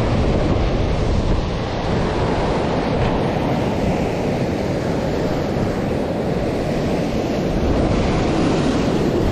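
Sea surf breaking and washing over a rocky, pebbly shore, with wind buffeting the microphone.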